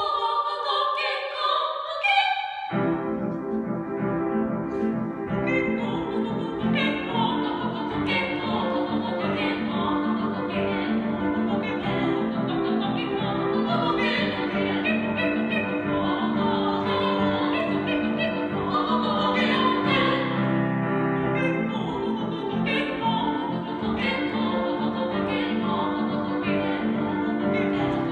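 Voices singing in an operatic, classical style, at first alone; about three seconds in an instrumental accompaniment joins them and carries on under the singing.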